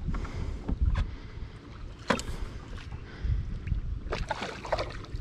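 Splashing of a hooked nase thrashing at the surface beside a landing net: a few sharp splashes, with a cluster of them about four seconds in. Under it, a low rumble of wind on the microphone and water against the small boat.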